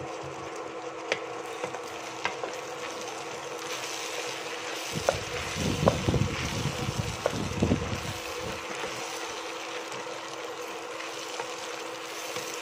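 Diced vegetables sizzling in a stainless steel pot while a wooden spatula stirs them, with scattered knocks of the spatula on the pot. The stirring is loudest from about five to eight and a half seconds in, over a steady hum.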